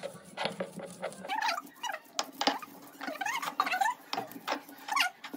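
Stone grinding on a sil-batta: the oblong stone muller rubbed and rolled over the flat grinding slab, crushing green chillies and garlic into a wet paste. It makes repeated short scraping strokes, each with a squeak that wavers in pitch.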